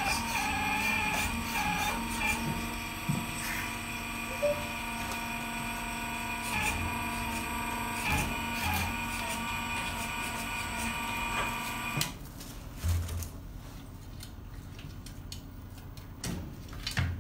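Hydraulic pump of a radio-controlled model excavator running with a steady, multi-tone mechanical whine that shifts slightly as the boom and arm move. About twelve seconds in it cuts off suddenly, followed by a few light clicks and knocks as the model is handled.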